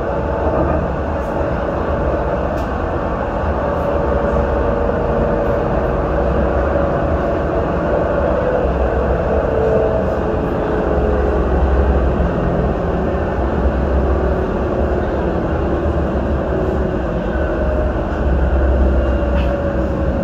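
Dubai Metro train running between stations, heard from inside the car: a steady rumble of wheels and running gear with a motor whine that slowly falls in pitch.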